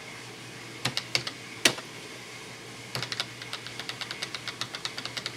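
Keys clicking on a Tandy Color Computer keyboard as the arrow keys step through a file menu: a few separate presses at first, then from about halfway a quick, even run of about five presses a second.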